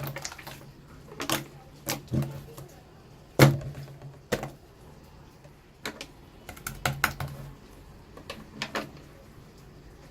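Slime being squished and poked by hand, giving off irregular sticky clicks and pops, with the loudest pop about three and a half seconds in.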